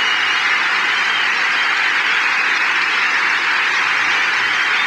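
Large auditorium audience applauding and cheering in a dense, sustained ovation.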